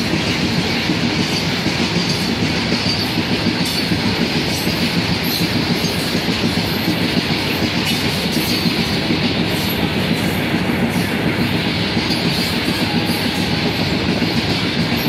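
A goods train of open freight wagons running through at speed: a steady, loud rumble and clatter of wagon wheels on the rails.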